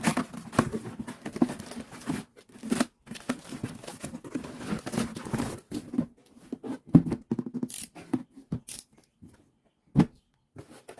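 Hands handling and rustling plastic packaging while unboxing squishies: irregular crinkling, scratching and tearing noises, busy at first and then sparser, with a few separate taps and knocks.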